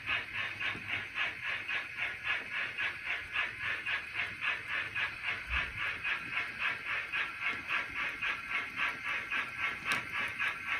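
Steam locomotive exhaust chuffing in a steady beat of about four chuffs a second, with a single sharp click near the end.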